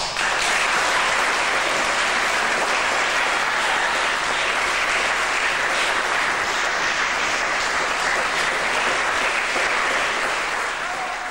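Audience applauding steadily after the final note of the double-bass quartet; the clapping fades away near the end.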